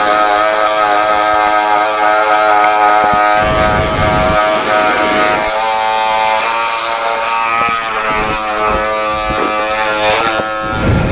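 Electric hair clipper buzzing steadily as it trims chest hair. Its tone shifts a little about halfway through.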